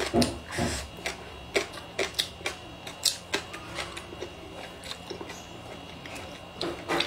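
A person chewing and biting food close to the microphone: irregular sharp crunches and wet mouth clicks, a few a second.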